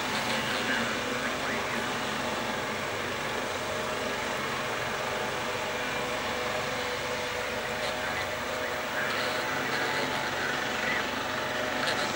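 Cessna 208B Grand Caravan's Pratt & Whitney Canada PT6A-114A turboprop running at low taxi power: a steady hum with several held tones, a little louder about nine seconds in.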